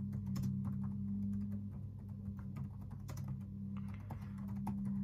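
Irregular clicking of fingers typing on a keyboard, over a steady low hum.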